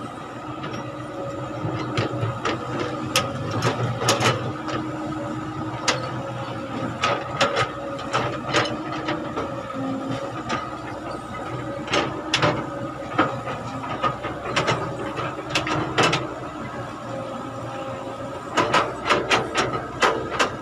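Cat hydraulic excavator's engine running steadily while it digs, with sharp clacks and knocks coming in clusters every few seconds as the bucket scrapes and bites into stony soil.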